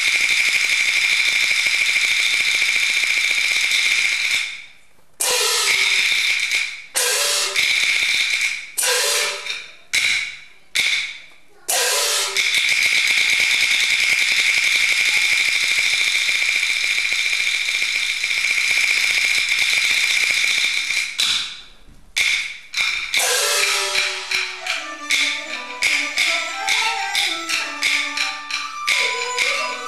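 Peking opera percussion ensemble playing a sustained roll of cymbals and gongs. From about five to twelve seconds in it breaks into single strokes whose ring slides down in pitch. Near the end come quick, even strokes with a melodic line over them.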